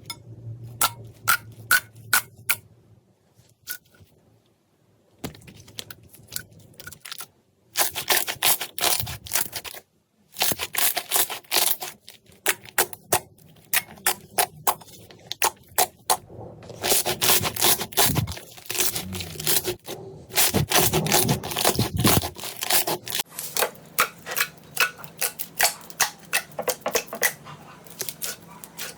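Slime being squeezed, poked and stretched by hand, giving dense runs of sharp clicks and crackling pops with short pauses between them.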